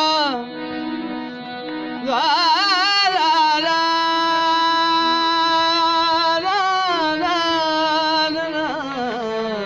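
Harmonium playing with a man singing Saraiki folk melody over it. He holds long notes, decorated with wavering ornaments. The voice swells louder about two seconds in.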